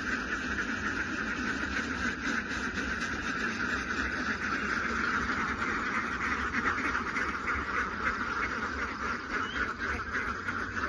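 A large flock of laying ducks quacking all together, a steady, unbroken din of many overlapping calls.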